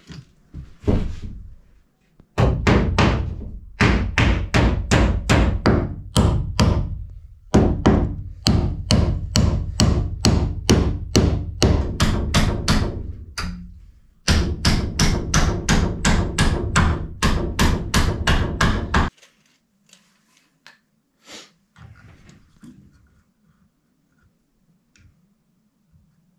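Hammer blows on plywood and wood framing: three long runs of rapid, even strikes at about three or four a second, stopping about two-thirds of the way through, followed by a few faint knocks.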